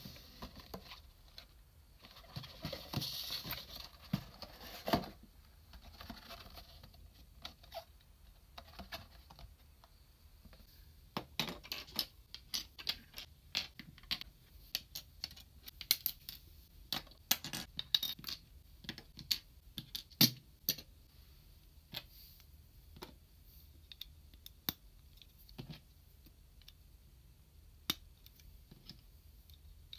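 Small plastic parts of an SMP Gaoking model kit being handled and put down on a wooden floor, and pieces being clicked together: a run of sharp clicks and taps, thickest in the middle, after a few seconds of rustling packaging at the start.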